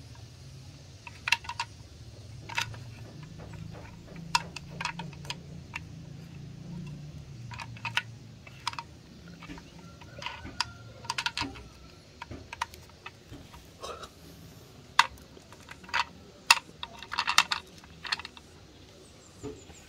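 Irregular sharp clicks and taps of small plastic toys being handled, some in quick clusters, with a faint low hum behind them for part of the time.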